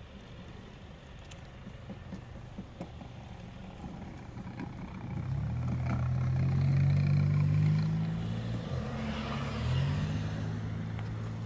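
A motor vehicle engine running, growing louder from about five seconds in, loudest midway, with a brief change in pitch near the end before it settles a little quieter.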